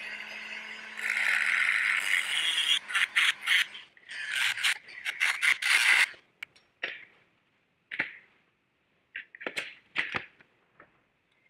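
Rotary tool on a flexible shaft running with a steady whine, then cutting into a thin copper sheet in loud scraping, rasping bursts for about five seconds. After it stops, there are scattered clicks and knocks as the copper pieces and a steel knife blade are handled.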